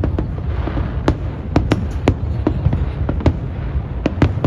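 Aerial fireworks shells bursting during a large display: about ten sharp bangs at irregular spacing over a steady low rumble.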